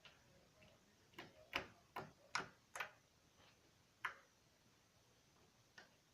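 Thick homemade slime being squeezed and pressed by hand, giving sharp little popping clicks: a quick run of about five, then two more spaced out, the last one faint.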